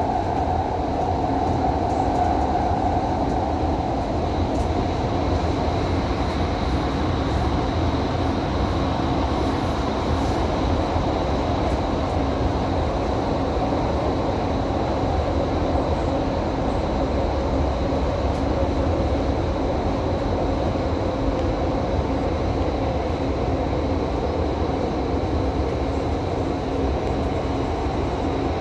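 Doha Metro driverless train running at speed through a tunnel, heard from inside the car: a steady rumble of the running train with a constant faint high whine over it.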